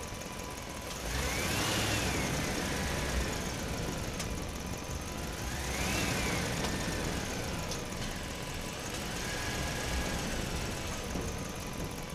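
Truck engine sound revving up and easing back down twice, then a smaller rev near the end, over a steady idling rumble.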